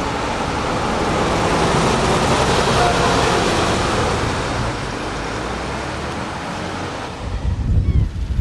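Road traffic noise: a vehicle passing, loudest about three seconds in and easing off after about five. From about seven seconds in, gusts of wind buffet the microphone.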